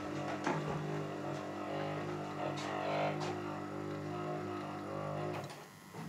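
12 V DC geared motor running noisily from a battery charger fed through a lighting dimmer, with a steady drone and rattling, mixed with the charger transformer's buzzing hum. Without the parallel lamp, the dimmer injects DC into the mains supply, which is what makes the transformer hum. The running sound stops abruptly about five seconds in.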